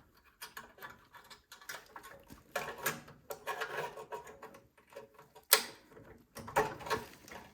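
Small metal parts clicking and scraping as throttle linkage is fitted by hand onto a snowblower carburetor, with one sharp click about five and a half seconds in.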